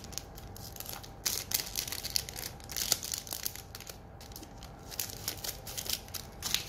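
Thin plastic wrapper crinkling as it is handled and cut open with small scissors, in irregular crackles.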